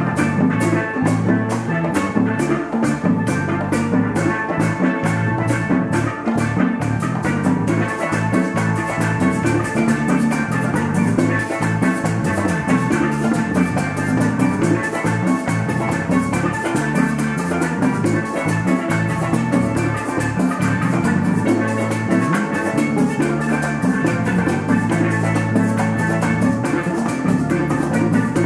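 Live church worship music: a band with drum kit playing a fast, steady beat, loud and unbroken.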